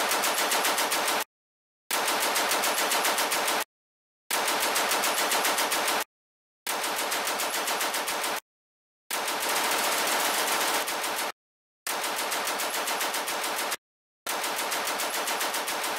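Machine-gun fire sound effect for the Sopwith Camel's twin Vickers guns: repeated bursts of rapid shots, each about two seconds long, with short dead-silent breaks between them.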